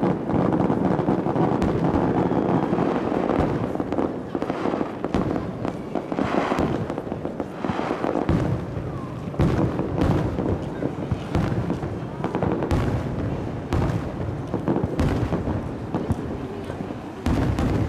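Fireworks display going off: a dense, continuous barrage of bangs and crackling from shells bursting, several reports a second.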